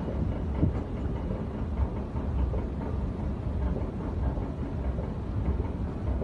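Escalator running: a steady low mechanical rumble, with two light knocks in the first two seconds.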